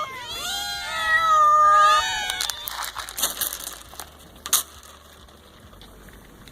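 Several cats meowing together, calling for their breakfast, for about the first two and a half seconds. After that the meowing stops and only scattered quieter clicks and rustling remain.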